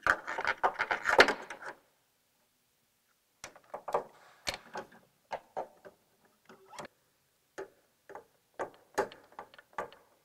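Clicks, clinks and light knocks of a motorcycle's front shock preload adjuster and its fittings being handled and worked into the frame: a dense rattling burst in the first two seconds, then scattered single taps.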